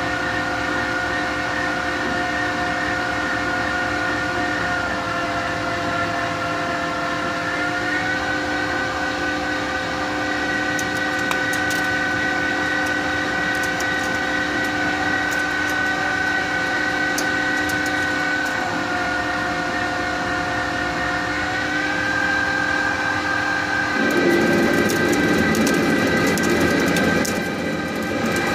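CNC lathe running a G71 roughing cycle: a steady whine from the spindle drive that shifts in pitch a few times, mostly upward, with scattered fine ticks of the tool taking a roughing pass. Near the end a louder, rougher noise comes in for about three seconds, then drops away.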